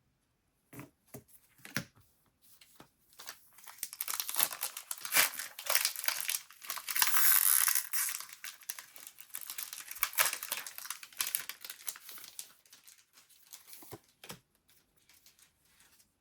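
A trading-card booster pack's plastic wrapper being torn open and crinkled. A few sharp clicks come first, then a dense, crackly rustle that builds for several seconds, is loudest around the middle and dies away to a few scattered clicks near the end.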